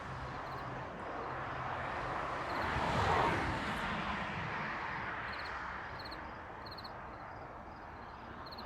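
A vehicle passing by: its noise swells to a peak about three seconds in, drops in pitch as it goes by, then slowly fades. Crickets chirp faintly in a steady repeating pattern throughout.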